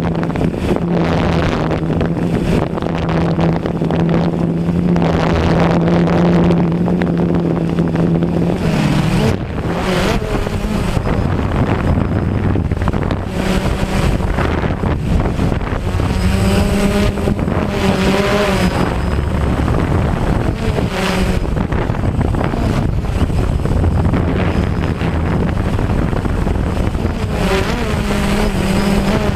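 DJI Phantom quadcopter's motors and propellers humming in high wind, with gusts buffeting the microphone. The hum holds one steady pitch for about the first eight seconds, then shifts and wavers as the motors change speed.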